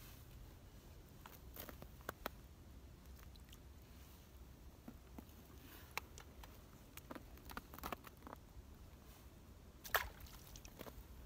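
Faint handling noise: scattered small clicks and crunches as an ice fisherman works his rod and shifts his boots on snow-covered ice, with one sharper click about ten seconds in.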